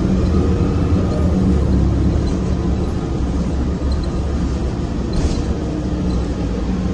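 Cummins Westport ISL G natural-gas engine of a 2008 Orion VII NG CNG transit bus running under way, heard inside the cabin as a loud, steady low drone with engine tones. A brief hiss about five seconds in.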